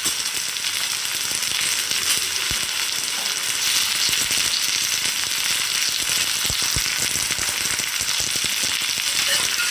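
Fried potatoes, cauliflower and peas sizzling in a hot pan, a steady hiss, with a few faint low knocks about two and a half seconds in and again near seven seconds.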